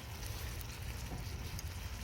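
Low rumbling wind noise on the microphone, with a few faint scattered crackles.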